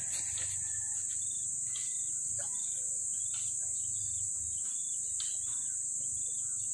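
Steady, high-pitched insect chorus, with faint short chirps repeating about twice a second.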